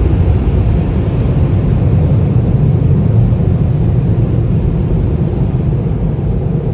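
Automatic tunnel car wash machinery running, heard from inside the car: a loud, steady rumble and rush of brushes, water spray and blowers.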